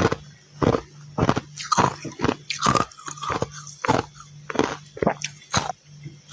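Close-up chewing of a mouthful of crunchy freezer frost, with sharp crunches about twice a second as the teeth bite down.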